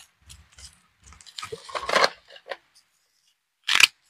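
Pruning shears working in the soil to cut the last roots of a sancang bonsai, first scraping and crackling for about a second and a half, then one sharp, loud snip near the end as a root is cut through.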